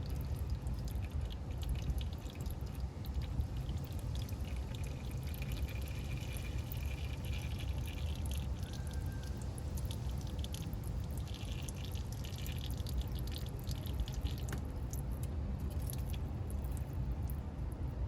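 Used engine oil draining in a steady stream from the open drain plug hole of a 2012 Chevy Equinox's oil pan and splashing into a catch pan, over a steady low rumble.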